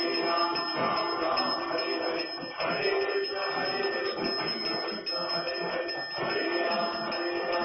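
Hindu devotional music with chanted singing, played during an aarti, with a high ringing that pulses about three times a second.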